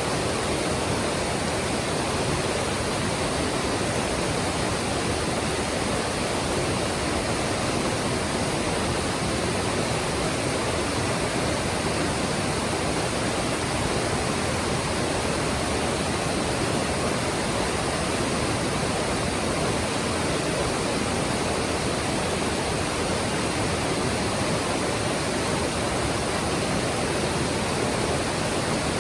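Mountain stream rushing steadily over rocks: an even, continuous water noise with no breaks.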